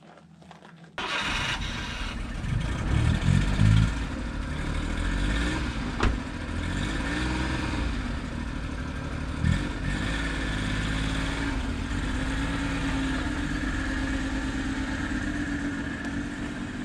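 Japanese mini truck's small engine starting about a second in and revved briefly, then running as the truck is driven off, its pitch rising and falling with the throttle. There are two short knocks along the way, and it settles to a steady run near the end.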